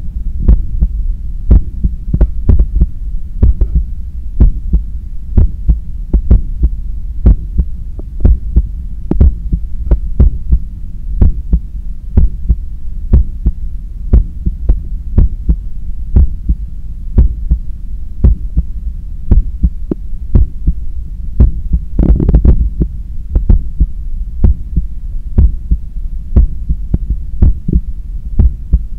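Human heartbeat heard through a stethoscope: lub-dub heart sounds in a brisk, regular rhythm over a steady low hum, from a heart recovering after a 10 km run. A brief louder noise breaks in about three-quarters of the way through.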